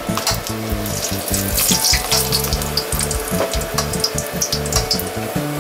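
Dried ñora peppers frying in hot oil in a metal pan, a steady sizzle with many small crackles, while a metal spoon presses them down and taps against the pan.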